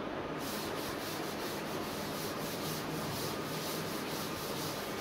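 Chalk being wiped off a blackboard: repeated back-and-forth rubbing strokes of an eraser across the board, starting about half a second in.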